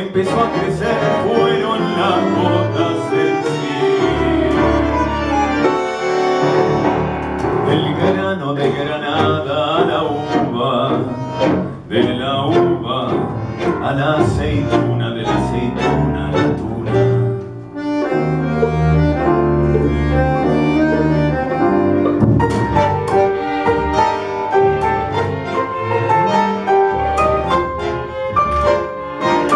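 A small ensemble of double bass, violins and piano playing a song, with a man singing into a microphone over parts of it. The music dips briefly twice in the middle.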